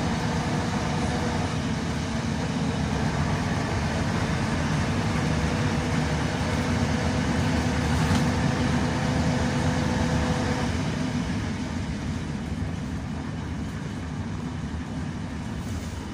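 Neman 5201 city bus heard from inside while under way: steady engine and road noise, with a faint whine that stops about ten seconds in as the running noise eases off.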